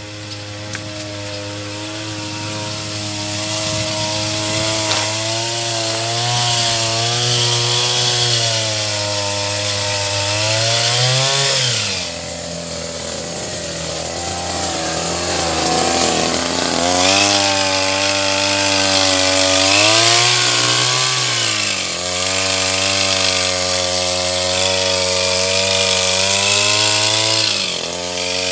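Small engine of a motorized backpack sprayer running at high revs while spraying pesticide on bitter gourd vines. Its note briefly dips and recovers about three times, around the middle and near the end.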